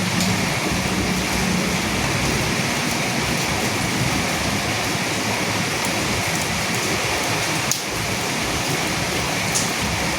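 Steady rain falling on dead leaves, an even hiss with a couple of sharper drop ticks in the last few seconds.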